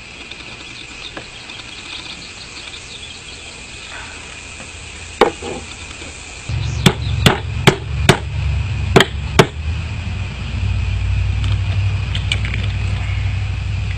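A large knife chopping into a lamb's head on a wooden cutting board to split the skull open. One knock comes first, then about six sharp blows in under three seconds, with a low rumble underneath. A steady chirr of insects runs behind.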